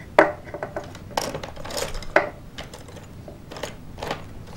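Small plastic toy figures clicking and clattering as hands rummage through a plastic bin of them, in scattered light clicks.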